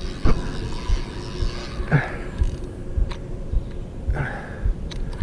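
Spinning fishing reel being cranked to bring in a hooked catfish, with irregular low bumps of handling noise and a few light clicks. Two short hissing rushes come about two and four seconds in.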